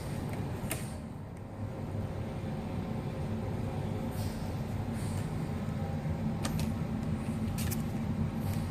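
Steady low background hum, with a few light clicks and taps as the laptop's screen assembly and its parts are handled.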